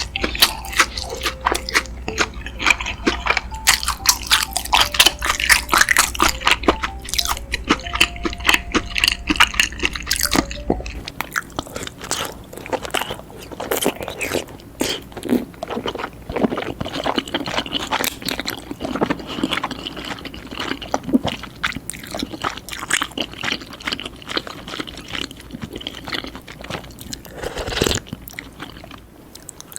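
Close-miked chewing of tteokbokki rice cakes: wet, sticky smacking and squishing mouth sounds, irregular and continuous. A low hum underneath stops about eleven seconds in.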